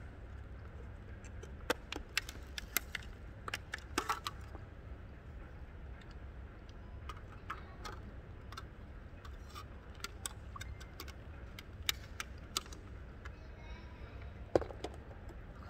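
Irregular plastic clicks and crackles from a black plastic takeout food container and its lid being handled and pressed shut, then rustled in a thin plastic bag, over a steady low hum.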